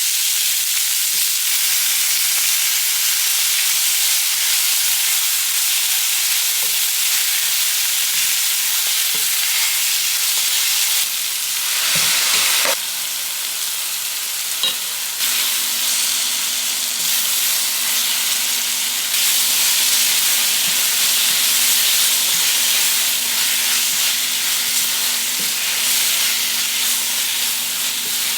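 Food sizzling and frying in a pan while it is stirred, a steady hiss. About halfway through, a faint low steady hum joins it.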